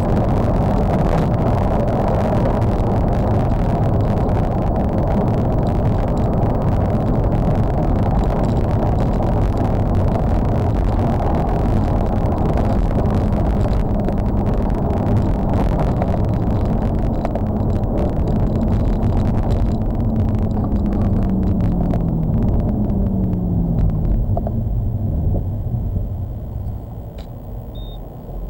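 Mercedes-Benz C63 AMG at high speed, heard inside the cabin: steady tyre and wind noise over the V8's drone. Past the middle the engine note falls in several steps as the car slows, and the whole sound grows quieter near the end.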